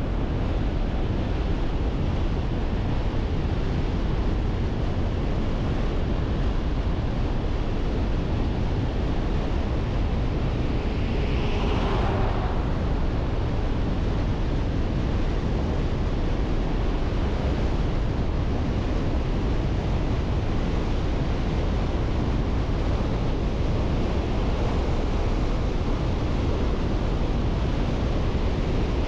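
A car driving: steady road and tyre noise with a low rumble, unchanged in level throughout. A brief higher hiss stands out about twelve seconds in.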